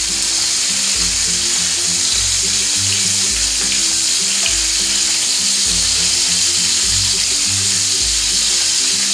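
Chicken shashlik skewers sizzling in shallow hot oil in a non-stick frying pan as they are turned over, a steady hiss. Background music with a low beat about once a second plays under it.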